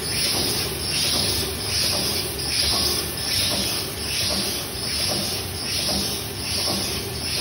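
Automatic PP woven bag-making machine running, with a rhythmic hiss that swells and fades a little more than once a second over a steady mechanical hum.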